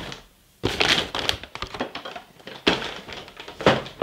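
Rummaging through bagged plastic kit parts in a cardboard box: plastic bags crinkling and rustling, with a few sharp knocks, the loudest near the end.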